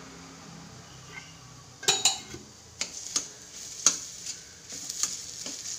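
Flat steel spatula scraping and clinking against a stainless steel kadai while stirring coarse urad dal flour roasting in ghee. It is quiet for about two seconds, then comes a run of sharp, irregular scrapes and clinks.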